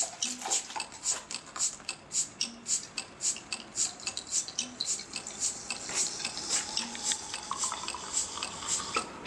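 Sparse percussive music: a steady rhythm of sharp clicks, about three a second, with faint short tones behind it.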